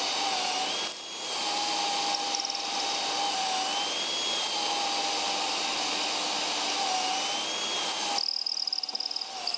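Cordless drill running at fast speed, boring a pocket hole through the pocket-hole jig's hardened steel guide into a board, with a shop vacuum on the jig's dust extraction running underneath. The drill's whine wavers with the load, dips briefly about a second in, and the drilling noise stops about eight seconds in, leaving the vacuum.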